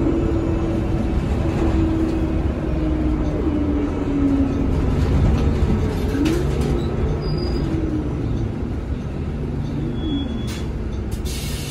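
Inside a 2018 NovaBus LFS CNG transit bus under way: the rear-mounted Cummins L9N natural-gas engine and Allison B400R six-speed automatic drivetrain run with a low rumble and a whine that rises and falls with road speed. A few rattles come about halfway through and near the end.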